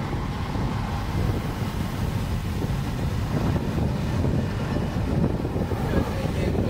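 Road and drivetrain noise inside a moving BMW 528i's cabin: a steady low rumble with wind noise over it.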